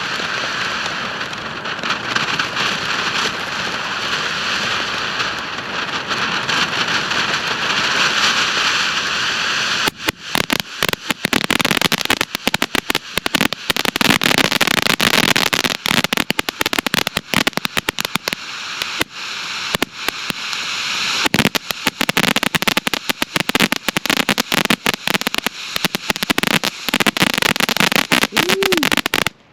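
TNT Razzle Dazzler firework fountain burning: a steady spraying hiss for about the first ten seconds, then dense rapid crackling for the rest, cutting off abruptly near the end.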